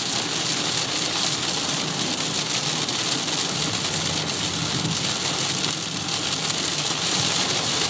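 Heavy rain pelting a moving car's roof and windshield, heard from inside the cabin: a steady hiss dense with the patter of drops, over the car's road noise on the wet highway.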